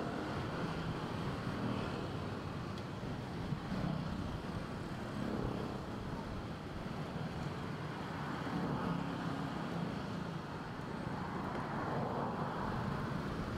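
Steady traffic noise from a jammed street: car and motorbike engines running in slow, stop-and-go traffic.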